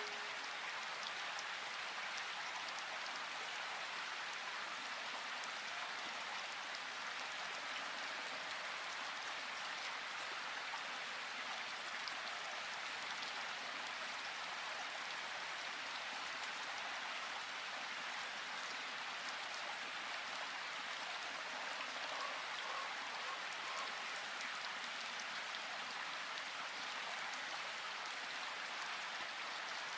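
Steady rushing of running water from a river or waterfall, an even wash with no breaks.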